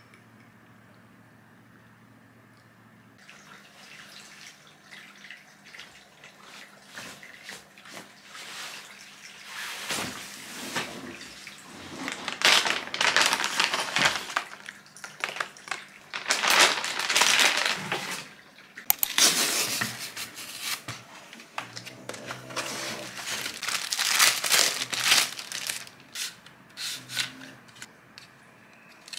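Clear plastic bag crinkling and rustling in loud, irregular bursts as it is handled and opened by hand.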